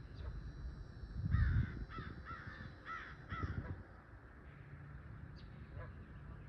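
A bird giving about five short, harsh cawing calls in quick succession, over a steady low rumble that swells about a second in.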